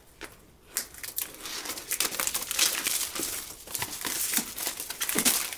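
Plastic shrink wrap crinkling and crackling as it is peeled off a cardboard box, starting just under a second in.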